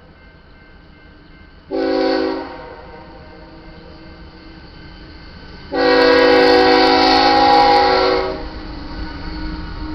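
Diesel locomotive air horn on the lead GE ES44C4 sounding a short blast, then a long one of about two and a half seconds. Under it is the rumble of the approaching train, which grows louder near the end.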